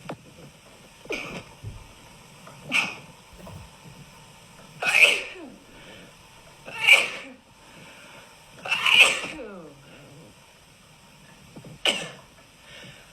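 A woman sneezing over and over, six sneezes about two seconds apart with the middle three the loudest, set off by a nasal swab for a Covid-19 test tickling the inside of her nose.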